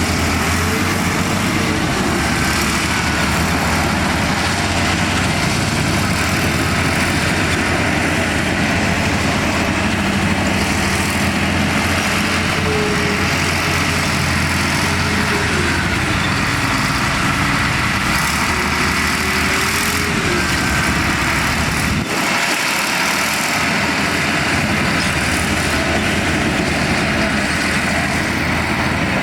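Heavy diesel engine of construction machinery running steadily. The low rumble briefly thins out about three quarters of the way through.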